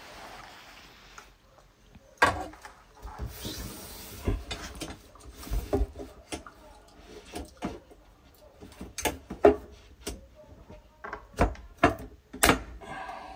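Pipe clips being knocked onto a wall and pipe: a series of irregular sharp knocks and clicks, with handling and rubbing noise between them. The loudest knocks come near the end.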